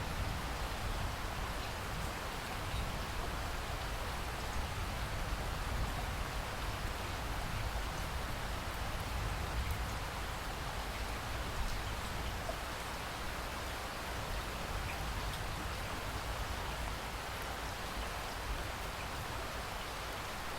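Steady rainfall in a rainforest: an even, unbroken hiss of rain on foliage with a deep, constant undertone beneath it.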